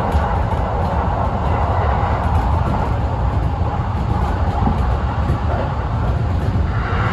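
Kintetsu express train running along the line, a steady rumble of wheels on rails heard from inside the train.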